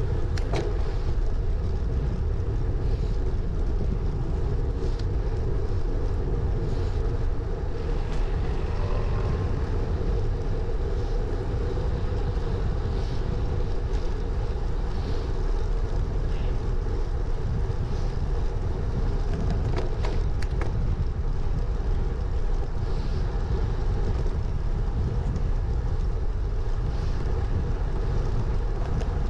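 Steady low wind rumble on a handlebar-mounted action camera's microphone, mixed with a road bike's tyres rolling on tarmac, with a few small clicks and rattles from the bike.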